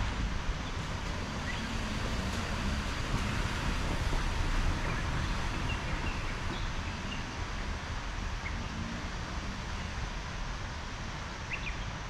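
Wind buffeting the microphone as a steady low rumble under a rushing hiss, with a few faint, brief bird chirps now and then.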